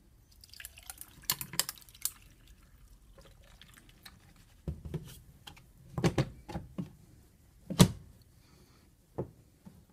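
Iced tea poured from a plastic gallon jug over ice cubes in a glass, the ice clicking and crackling as the tea hits it. Then come several knocks and one sharp, loudest clack near the end as the jug and utensils are set down on the countertop and cutting board.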